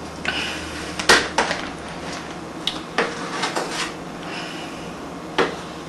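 Light clicks and knocks of small hard objects being handled and set down on a hard surface, with a brief scrape near the start. The loudest click comes about a second in.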